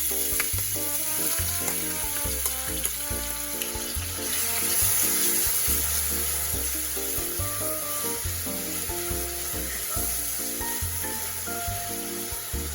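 Food sizzling in hot oil in a pan: a steady, dense frying hiss. Background music with a rhythmic bass plays underneath.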